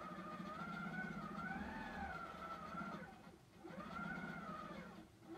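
HQ Simply Sixteen quilting machine stitching: a motor whine that rises and falls in pitch as its speed changes, over a fast needle buzz. It drops away briefly twice, a little past the middle and near the end.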